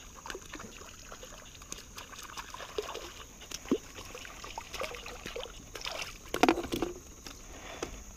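Splashing of a hooked fish thrashing at the water's surface as it is reeled in, with scattered small clicks of rod and reel; the splashing is loudest in a short cluster about six seconds in, as the fish is lifted from the water.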